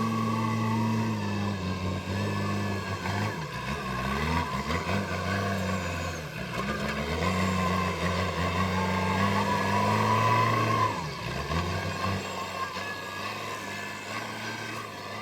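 JCB backhoe loader's diesel engine working under load. The pitch sags briefly twice, about four seconds in and about eleven seconds in, and a higher whine rises and falls over it.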